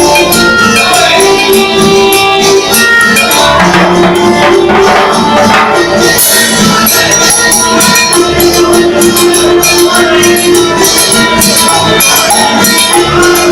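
Music played on an electronic keyboard, with held notes and a melody over a quick, steady percussion beat.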